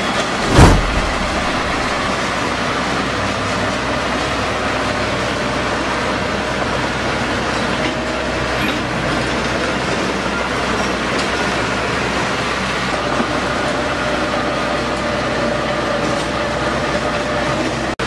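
Small crawler bulldozer's diesel engine running steadily while it pushes dirt and gravel. A single loud thump about half a second in.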